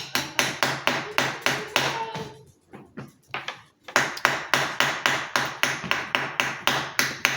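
Fast, even taps, about four a second, in two runs with a pause of about a second and a half between them.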